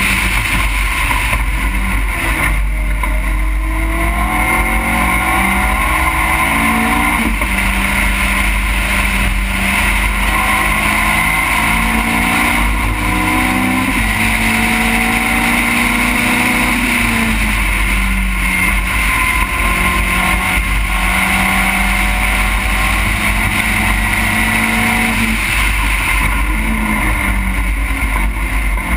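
Onboard race car engine pulling hard, its pitch climbing and dropping sharply at each gear change. Near the end it steps down through several downshifts under braking. Wind buffeting and road rumble run underneath.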